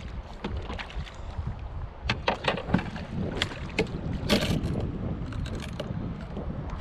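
Wind rumbling steadily on the microphone aboard a kayak at sea, with a run of short splashes and knocks from about two seconds in, the loudest a little past four seconds.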